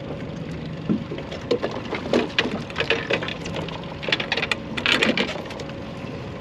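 Fishing reel being cranked in quick bursts of rapid mechanical clicking as the angler winds against a hooked thresher shark, over a faint steady hum.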